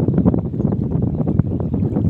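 Wind buffeting the microphone: a loud, steady rumble with irregular crackles throughout.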